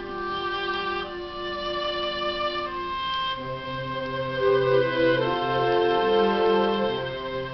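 Symphonic wind band playing held chords; about three seconds in, lower notes join and the music grows fuller and louder.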